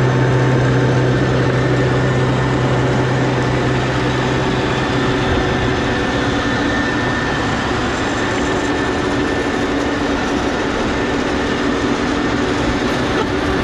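Farm tractor and round baler running steadily while baling hay: a continuous engine hum with mechanical clatter, the low hum easing off about four seconds in.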